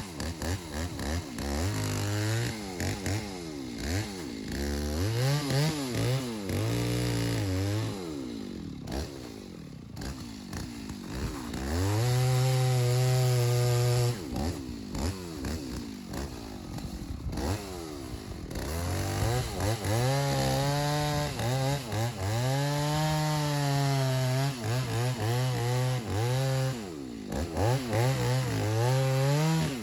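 Gas chainsaw cutting into a dead ash tree, its engine speed rising and falling again and again, with longer steady stretches where the chain is held in the cut.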